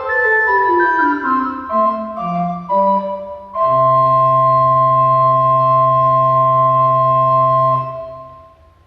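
Organ playing the close of a piece: a run of notes stepping downward, then a final chord held for about four seconds that fades out near the end.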